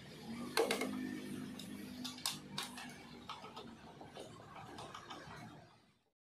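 Light clicks and taps of hard plastic and a screwdriver as an amber turn-signal lamp is fitted and screwed onto a plastic scooter body panel, fading out just before the end.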